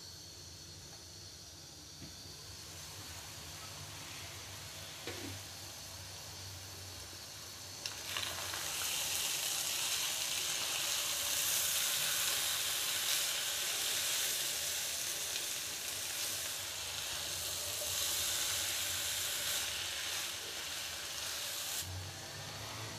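Minced meat and green capsicum sizzling in a karahi, first muffled under a glass lid, then much louder from about eight seconds in, after a click as the lid comes off and the mixture is stirred with a spatula. The sizzle drops again near the end.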